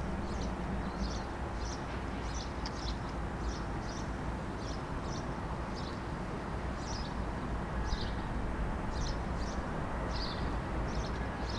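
Diesel locomotives idling at a distance with a steady low rumble, while small birds chirp repeatedly over it.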